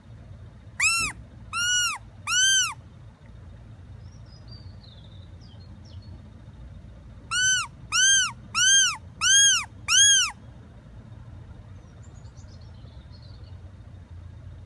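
Fox Call predator whistle blown to lure foxes: three short whistled notes, each rising and then falling in pitch, then a pause of several seconds and five more in quicker succession.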